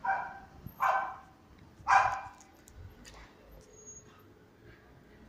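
A dog barking: three sharp barks about a second apart, then a fainter fourth.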